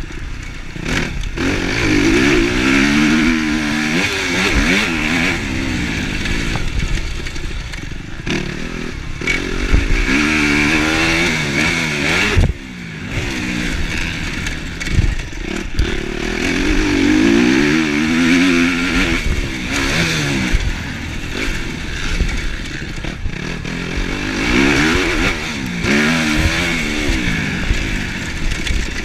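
Kawasaki KX250F motocross bike's four-stroke single-cylinder engine, heard from on the bike, revving hard and dropping back again and again as it is ridden around the track. The pitch climbs in several long rising runs and falls between them.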